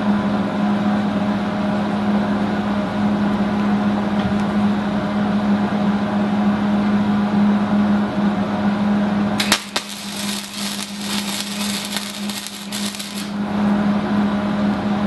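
Wire-feed welder humming steadily, then the welding arc strikes about nine and a half seconds in and crackles and sputters for about four seconds before stopping, leaving the hum again.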